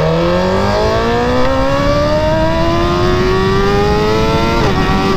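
Sport motorcycle engine accelerating hard in one gear, its pitch climbing steadily for about four and a half seconds, then a quick upshift near the end drops the revs before they climb again. Wind rushes on the microphone underneath.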